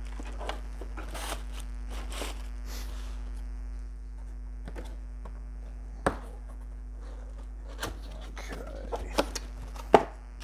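Cardboard mirror box being handled and opened by hand: scattered knocks, taps and scrapes of the cardboard, with sharper knocks about six seconds in and near the end. A steady low electrical hum from a noisy microphone runs underneath.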